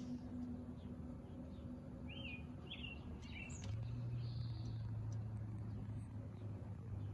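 A few short bird chirps over a steady low hum of unknown origin, likened to a wind tunnel. A little past halfway the hum drops to a lower, louder pitch and holds there.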